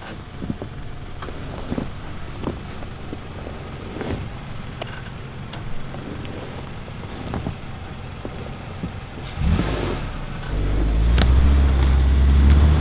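Mitsubishi Outlander crossover crawling slowly over snow, its engine running low and steady, with scattered knocks and crunches from the tyres and body. About ten seconds in the engine note grows much louder as the car pulls away under throttle.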